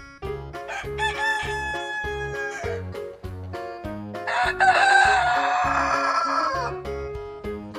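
A rooster crowing twice, the second crow longer and louder, over background music with a steady beat.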